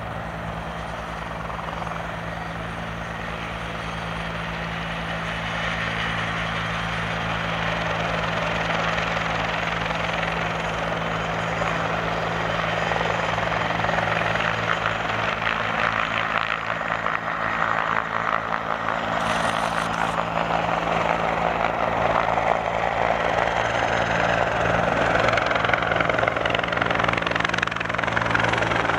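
Bell 412 twin-turbine helicopter in flight, its rotor and engines running steadily, growing gradually louder as it draws nearer.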